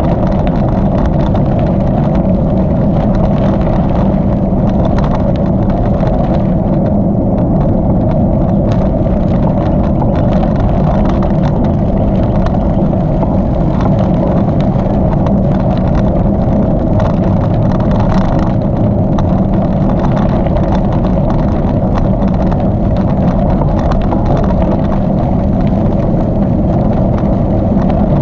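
Steady rushing noise of a bicycle in motion on a rail trail: tyres rolling and wind, with many small clicks and rattles from the bike throughout.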